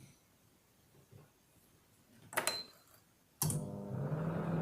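Microwave oven being set and started: a keypad press with a short beep, then about a second later the oven switches on with a sudden steady hum that keeps running.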